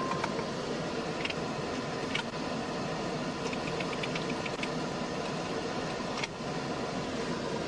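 A vehicle engine running steadily, with a few faint clicks over it.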